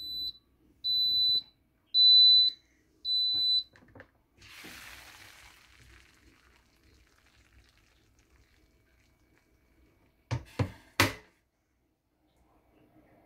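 Instant Pot electric pressure cooker sounding its end-of-cycle beeps, high and about once a second, stopping about four seconds in: the signal that the rice is cooked. A short hiss follows and fades away, and near the end there are three sharp knocks.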